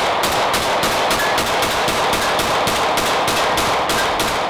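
SIG Sauer M18 compact 9mm pistol fired in a fast string of shots, about four a second, each with a reverberant tail.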